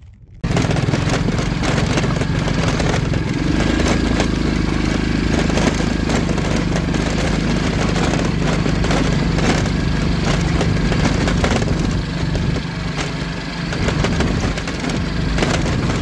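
Small motorbike engine running steadily while riding over a loose gravel track, with stones and the bike clattering. It starts abruptly about half a second in.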